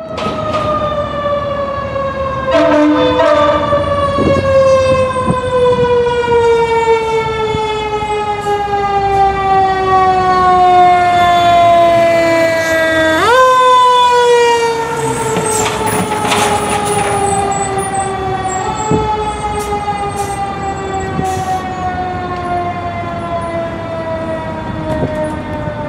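Fire engine siren in a long, slowly falling wail, sharply wound back up about halfway through and given a smaller boost later, then falling again.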